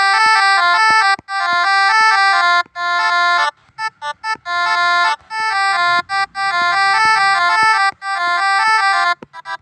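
Telolet basuri-style multi-tone musical air horn playing a tune: held, bright notes stepping up and down in pitch, broken by short gaps, with a run of quick short toots near the end.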